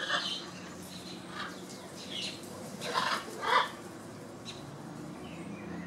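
Parrots squawking, a blue-and-yellow macaw and yellow-crowned amazons: about six short, harsh calls, the loudest two about three seconds in, over a faint steady low hum.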